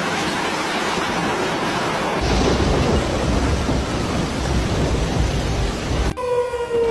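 Rain hissing in a thunderstorm, with a deep rumble of thunder joining about two seconds in. Near the end it cuts abruptly to a siren wailing on one tone that slowly falls in pitch.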